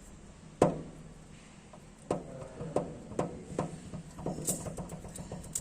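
Hand tools clicking and tapping on an engine's valve gear while the exhaust valve clearance is checked with a feeler gauge. There is one sharp click about half a second in, then a run of irregular light taps from about two seconds on.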